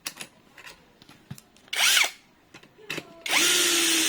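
Cordless electric screwdriver running in two bursts, driving a screw: a short run about two seconds in, then a longer steady run near the end, each winding up and back down in pitch. A few small clicks come in between.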